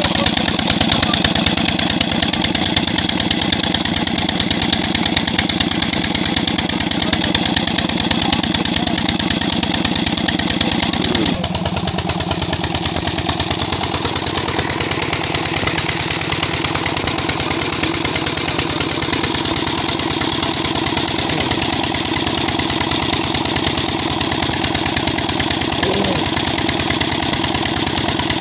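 Single-cylinder 20 hp China diesel engine running steadily, driving a belt-driven irrigation water pump under load, with a rapid, even firing beat. The tone shifts abruptly about eleven seconds in.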